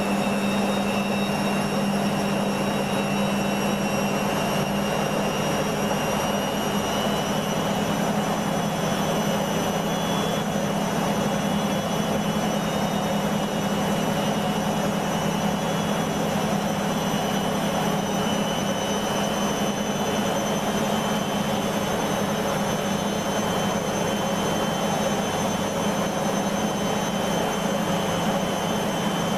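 Beko washing machine spinning at high speed: a steady motor and drum hum with a high whine that creeps slowly up in pitch as the drum gathers speed.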